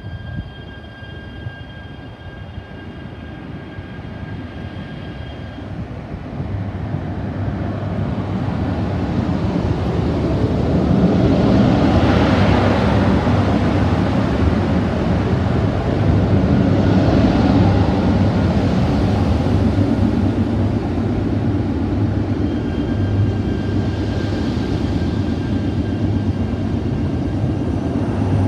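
E3-series Toreiyu Tsubasa mini-shinkansen train pulling out slowly along the platform, its running noise building to its loudest about midway with a steady low motor hum. A thin steady whine is heard at the start and again near the end.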